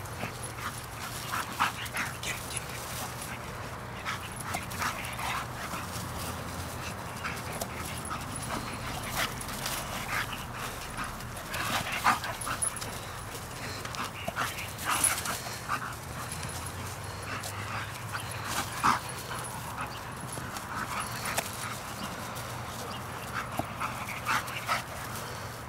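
Two excited pit bulls giving short yips and whines, scattered throughout with a few louder ones, while chasing a flirt-pole lure.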